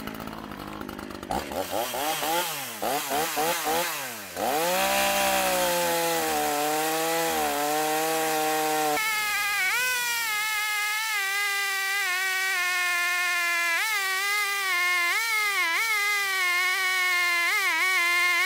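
Echo CS3510 34 cc two-stroke chainsaw revving up and down a few times, then running at high speed as it cuts through a dry poplar log, its pitch dipping briefly now and then as the chain bites under load.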